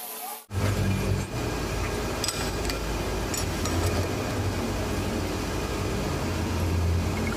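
Metal lathe running with a steady motor hum and a few faint light clinks; the sound starts abruptly about half a second in.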